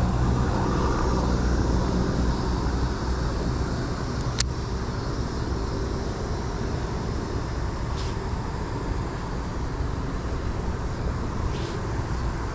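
Steady low rumbling hiss of outdoor background noise, with a single sharp click about four seconds in and a couple of softer ticks later.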